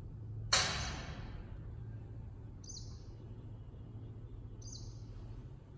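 A small metal weight clinks sharply onto the hanging metal effort pan of a single purchase crab machine about half a second in, ringing briefly as it fades. Two faint high chirps follow later over a low steady hum.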